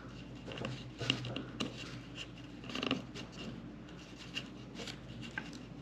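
Hands tying jute twine into a knot at the edge of a painted canvas: light rubbing and scratching of the twine with a few small clicks, the most distinct about a second in and near three seconds.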